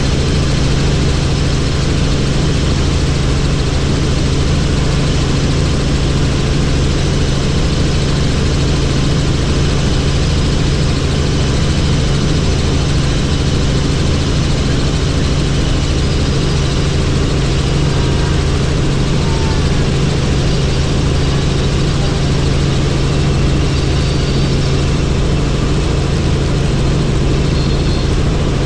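Helicopter in steady flight: a constant low drone from the engine and rotor with a hiss of rushing air over it, unchanging throughout.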